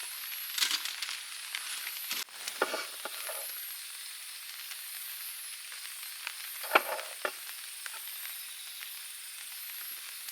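Food sizzling in a pan over a campfire: a steady hiss broken by a few sharp pops and crackles.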